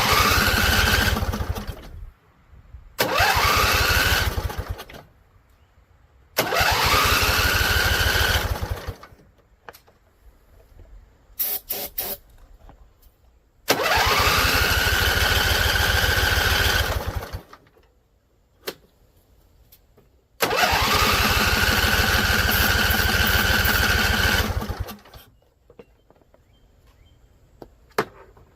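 Husqvarna Z254 riding mower engine cranked on its electric starter in five separate tries of about two to four seconds each. Each try starts with a rising starter whine and stops without the engine staying running; it has been primed with carburetor cleaner. Short clicks fall in the gaps between tries.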